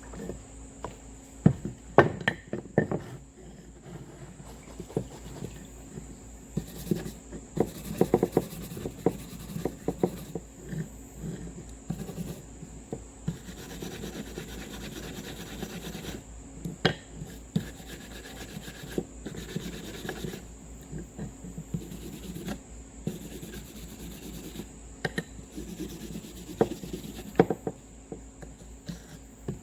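Hand scrubbing of rusty steel needle nose pliers, the brush rubbing and scraping irregularly, with scattered sharp clicks and knocks as the tool is handled.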